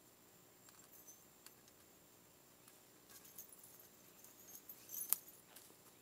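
Shovel lifting a clay pot of gold chains and coins out of forest soil: faint scrapes and light clinks, with a sharp click about five seconds in.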